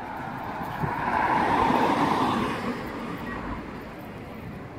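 A car passing by on the street: road noise swells about a second in, peaks, and fades away over the next two seconds.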